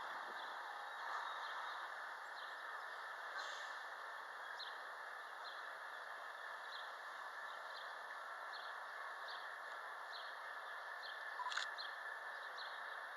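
Small birds chirping in short high notes every half second to a second over a steady background hiss, with one sharp click near the end.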